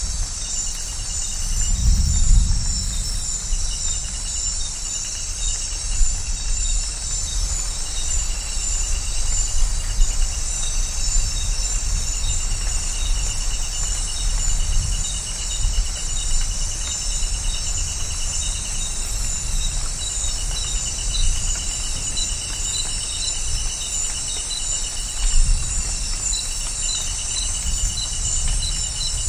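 Amazon rainforest night ambience: a dense chorus of insects and frogs, with trills and pulsed calls that come and go. Underneath runs a low rumble of distant thunder, swelling about two seconds in and again near the end.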